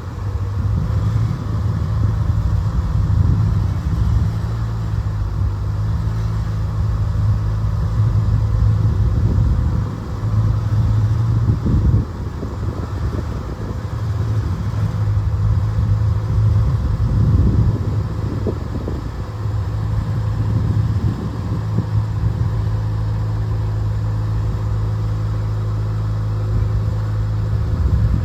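A machine's engine running steadily with a low, even hum, its level rising and falling slightly and dipping briefly about ten seconds in.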